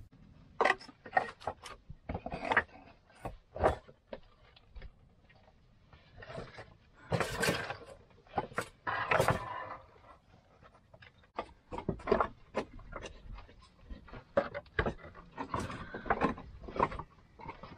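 Flat stones of a dry-stone wall being levered off and knocked against each other: irregular clacks and scrapes of stone on stone. A couple of longer, louder clattering bursts come about seven and nine seconds in.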